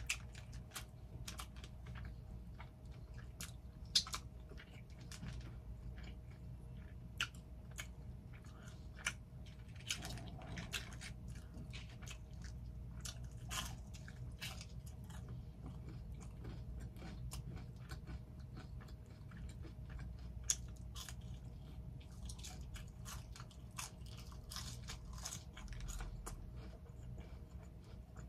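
Close-miked chewing and biting of a homemade cheeseburger: wet mouth sounds with many sharp crunches and crackles, over a faint steady hum.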